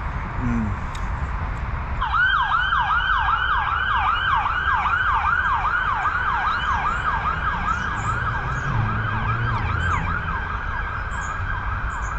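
Emergency vehicle siren on a fast yelp, starting about two seconds in and swooping about three times a second, over a low rumble of road traffic.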